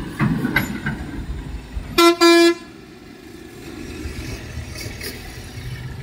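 A vehicle horn honks twice in quick succession about two seconds in, two short loud blasts, over a low engine rumble.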